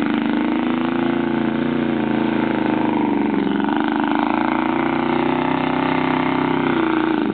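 The engine of a 2001 Ford F-150 4x4 pickup running hard under load as the truck drives through loose sand, spinning its rear wheels. Its pitch dips about three and a half seconds in, climbs back, and falls away sharply at the very end.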